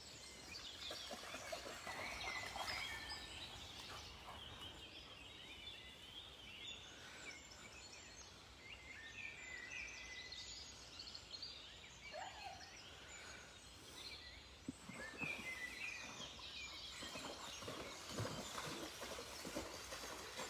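Faint birdsong: several small birds chirping and trilling over one another. A few soft scuffing sounds come in near the end.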